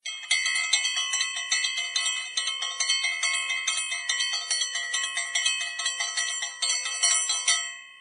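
Bright bell-like chimes struck rapidly, about five strikes a second, over steady ringing tones; the striking stops near the end and the tones ring out and fade.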